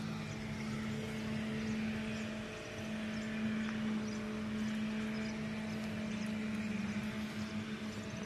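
Steady drone of a distant engine: a low hum that holds one pitch, with a second slightly lower tone running alongside it, over a soft background hiss.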